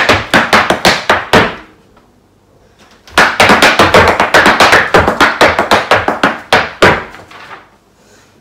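Irish dance hard shoes beating out rapid shuffles and hop-backs on a floor mat, about six taps a second, in two runs of the same sequence with a pause of about a second and a half between them.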